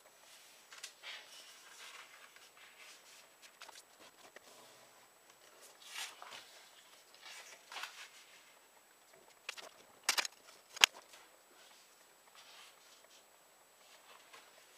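A sheet of paper being handled and folded on a cutting mat: soft rustles and sliding as a corner is folded over and creased flat, with two sharp, crisp clicks about two-thirds of the way through.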